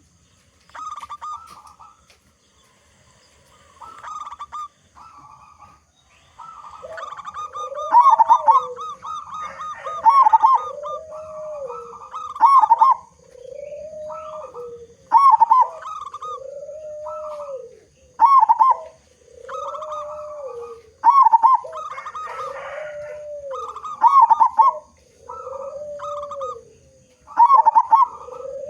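Zebra dove (perkutut) cooing: short runs of rapid stuttering notes, and from about six seconds in each run is followed by a lower drawn-out coo, the phrase repeating roughly every two seconds.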